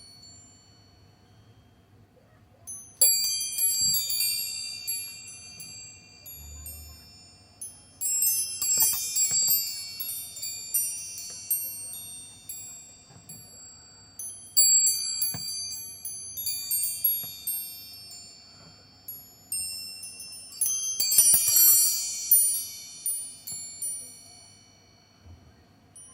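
Chakra wind chime ringing in four bouts of rapid strikes several seconds apart. Each bout is a cluster of bright, high, overlapping tones that ring on and die away before the next.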